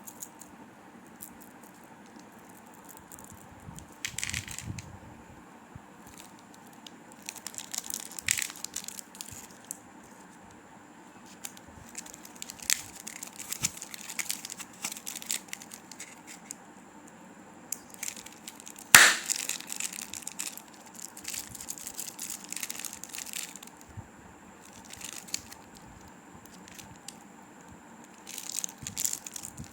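Plastic and foil candy wrappers crinkling and tearing in short bouts as chocolates and candies are unwrapped, with one loud sharp crack about two-thirds of the way through.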